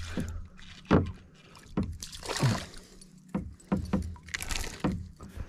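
Sharp knocks against a plastic kayak hull, the loudest about a second in, with two short bursts of splashing as a hooked ladyfish fights on a spinning rod.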